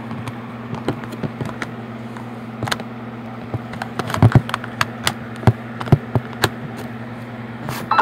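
A steady low electrical buzz, with scattered light clicks and taps over it and a small cluster of louder clicks about four seconds in.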